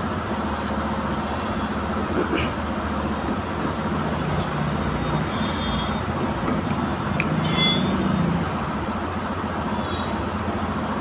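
Steady rumble of passing road traffic, with a brief high-pitched squeal about seven and a half seconds in.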